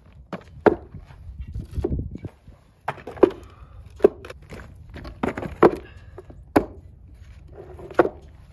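Concrete cinder blocks being set down and shifted on weathered wooden boards, giving a series of sharp knocks and scrapes, with footsteps crunching on gravel between them.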